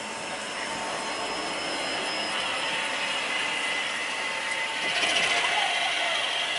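Translohr rubber-tyred tram running: a steady mechanical whine with a rushing rolling noise, getting louder about five seconds in.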